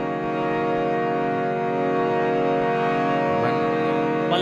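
Harmonium holding a steady sustained chord, its reedy notes unbroken throughout.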